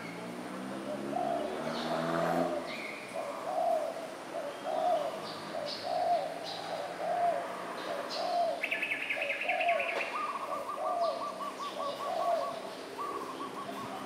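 Spotted doves cooing, a run of soft, similar coos about once a second. Another bird gives short, fast, higher trills partway through.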